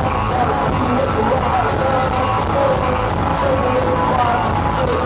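Live psychobilly band playing, loud and steady, with drums and electric guitar.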